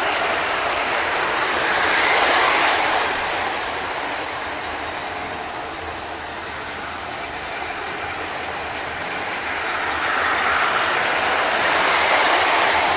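00 gauge model trains running on the track, a steady rushing whir of motors and wheels on the rails. It swells about two seconds in and again near the end as trains pass close by.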